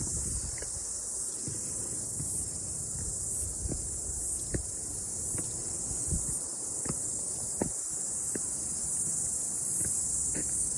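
Cicadas singing in a steady, continuous high-pitched chorus, with a few scattered light ticks underneath.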